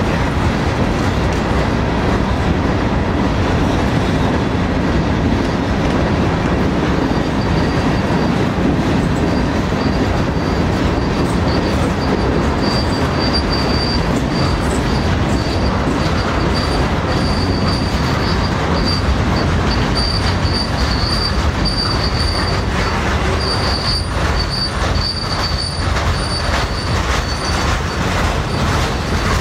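Freight cars rolling past on the rails: a steady loud rumble of steel wheels on track. A thin high squeal from the wheels comes in about a quarter of the way in and carries on, and sharp rhythmic clicks of wheels over the rail join it in the last third.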